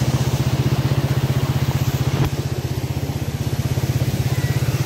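Motorcycle engine of a sidecar tricycle running at low speed with a steady, rapid putter. A single brief knock a little over two seconds in, after which the engine is slightly quieter.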